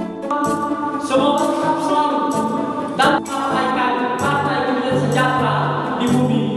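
Intro music with choral singing, with a short loud hit about three seconds in.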